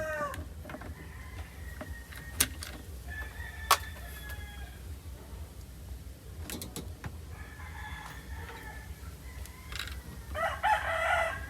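Roosters crowing several times in the background, long drawn-out calls that fall in pitch at the end, the loudest near the end. Two sharp clicks sound about two and a half and four seconds in, over a steady low hum.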